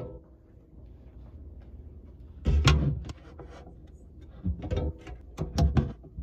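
Handling noise of a camera being set in place: a few loud bumps and knocks about halfway through and again near the end, over a faint low hum.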